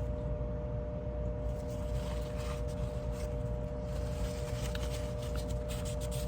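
Faint light clicks and scrapes of small metal folding-knife parts being handled and pulled out during disassembly, over a steady electrical-sounding hum.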